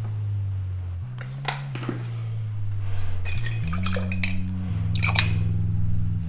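Background music of low held notes that step from one pitch to another every second or so, with a few light, ringing clinks of glass or metal struck through the middle.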